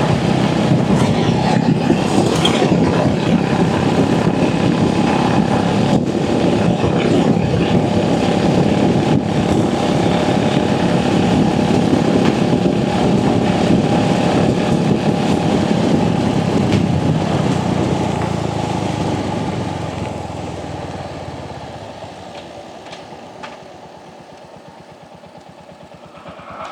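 Royal Enfield Hunter 350's single-cylinder engine running steadily while riding, mixed with road and wind noise. The sound dies down a little over two-thirds of the way through and stays much quieter to the end.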